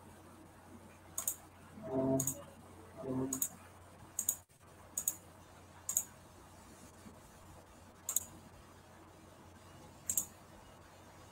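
Computer mouse clicking about eight times, sharp single and double clicks at irregular intervals, with two short low murmurs from a voice about two and three seconds in.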